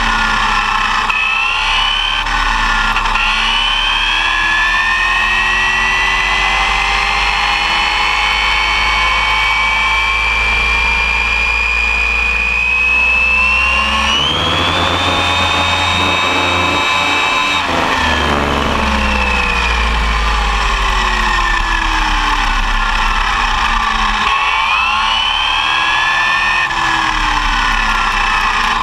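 Arrma Typhon 6S electric RC buggy heard from its onboard camera at speed: the brushless motor and drivetrain whine climbs steadily in pitch for about ten seconds, holds high for a few seconds, then falls away and rises again near the end. A steady road and wind rumble runs underneath.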